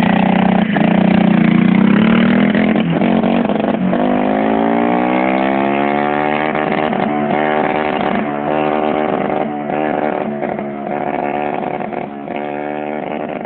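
Derestricted 50cc quad bike engine accelerating, its pitch climbing steadily over a few seconds and then holding at high revs while it slowly grows quieter.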